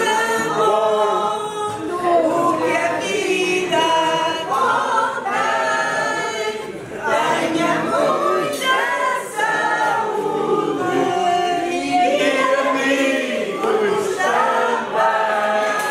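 A group of men and women singing together unaccompanied, a birthday song for one of the group.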